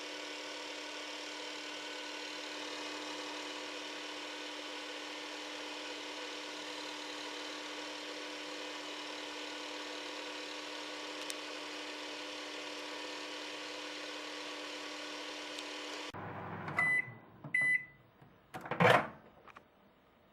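Microwave oven running with a steady hum that cuts off suddenly about 16 seconds in. Two short beeps follow, then a single loud clunk.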